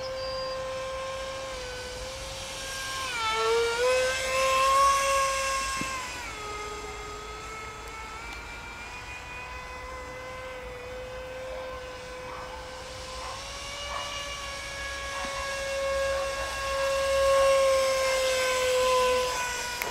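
Radio-controlled Me-262 Schwalbe model jet flying overhead, its engines giving a steady whine. The pitch dips and glides as the model passes, about four seconds in, and the whine swells louder then and again near the end.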